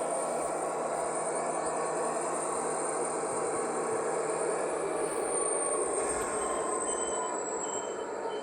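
HO scale model diesel locomotive's sound decoder playing the running sound of a turbocharged diesel prime mover through its Scale Sound System speaker. A high whine glides slowly down in pitch from about halfway in.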